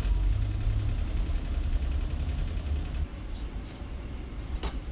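A low, steady rumble, louder for the first three seconds and then quieter, with a single sharp click near the end.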